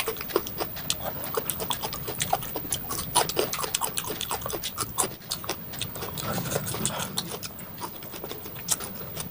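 Close-miked chewing of raw salad vegetables: wet crunching and mouth smacking in quick, irregular clicks.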